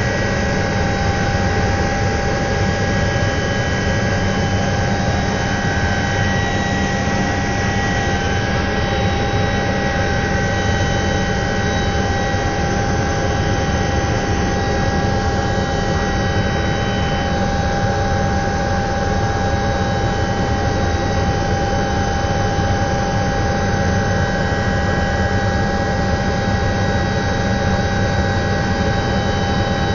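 Cabin noise of an Alouette III (IAR-316B) helicopter in cruise flight: the Turbomeca Artouste turboshaft's steady whine, made of several high tones, over a constant low drone.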